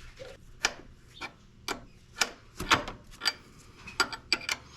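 A wrench working the high-pressure line fitting on a power steering pump as it is threaded back in and tightened: a string of short, irregular clicks, about two a second, with faint rubbing between them.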